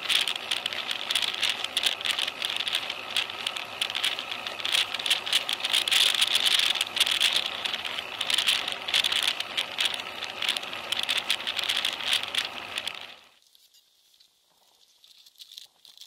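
Road vibration rattle and rushing road and wind noise picked up by a bike-mounted rear camera while riding on tarmac: a dense, crackly clatter that stops abruptly about thirteen seconds in, leaving only faint sound.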